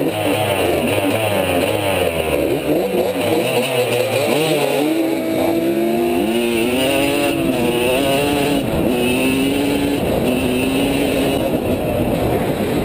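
Dirt bike engine revving hard, heard from the bike itself as it accelerates: its pitch climbs and drops back at each upshift, several times from about six seconds in. In the first few seconds the engine pitch wanders up and down with throttle.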